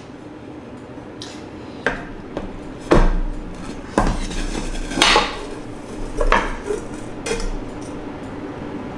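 A frying pan, plate and metal utensil clattering: a run of knocks and scrapes about a second apart, loudest in the middle, as a set Spanish omelette is loosened from the pan and turned out onto a plate.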